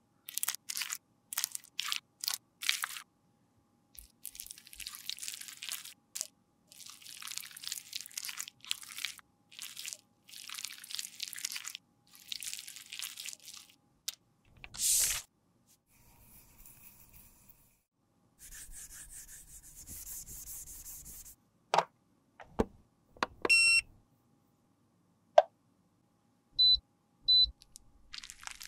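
Metal spatula scraping and spreading thick cream concealer in a plastic pot: runs of short, crackly scraping strokes. Later come a few sharp clicks and two short beeps.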